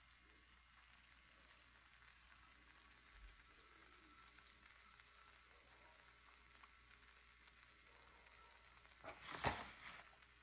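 Near silence: a faint steady hiss, broken near the end by one short burst of rustling or handling noise.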